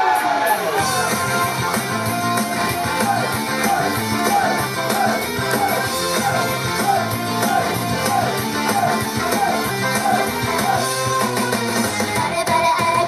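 Upbeat J-pop idol song played for a live stage performance: an instrumental stretch with electric guitar and a steady beat, and a short falling riff repeating about twice a second.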